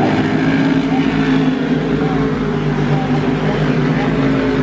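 Pack of modified stock cars racing, their V8 engines running hard at high revs as several cars pass together, with the engine notes overlapping and shifting slightly in pitch.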